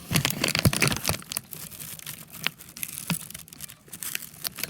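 Rustling and crinkling with many irregular sharp crackles, loudest in the first second or so.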